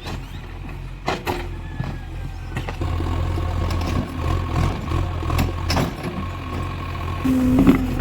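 JCB 3DX backhoe loader's diesel engine running, with scattered sharp clanks. About three seconds in the engine grows louder and a steady whine joins it.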